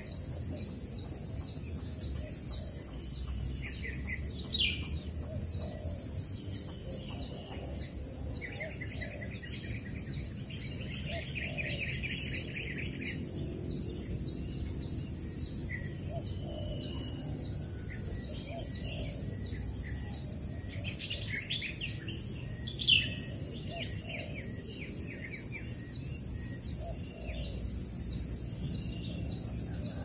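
Wild birds calling and chirping around the nest, with short trilled phrases and a steady run of quick high chirps about twice a second, over a constant high drone of insects. One brief louder note stands out about two thirds of the way through.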